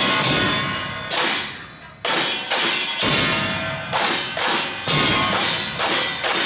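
Drum troupe playing, with loud strikes about once a second that ring on until the next.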